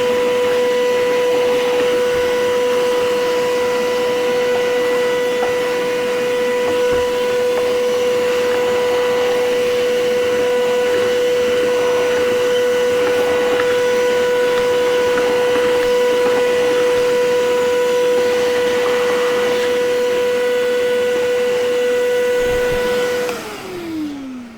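Vacuum cleaner running steadily with a whining motor tone, switched off near the end, its pitch falling as the motor winds down.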